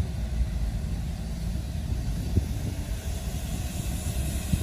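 Low, steady rumble of a truck engine as a light truck loaded with sugarcane comes round a bend towards the listener, with a couple of short knocks, one about halfway through and one near the end.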